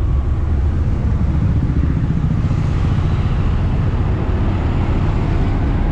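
Steady engine and road noise heard from inside the cabin of a moving small taxi, a continuous low rumble.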